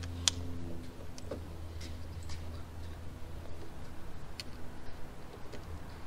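Scattered small clicks and taps of pliers and hose clamps as silicone vacuum hoses are fastened in place, a few sharp ticks at irregular intervals. A steady low hum runs underneath.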